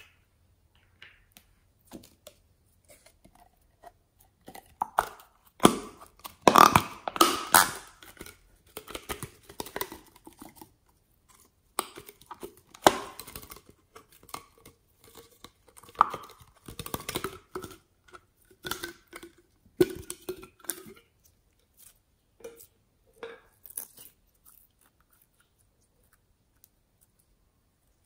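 Clear slime squelching, with sticky pops and crackles, as it is squeezed out of a plastic tube and handled. The sounds come in irregular bursts and thin out near the end.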